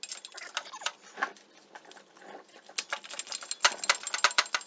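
Socket ratchet clicking in runs of quick ticks, coming faster in the second half, as a 15 mm exhaust bolt is worked loose.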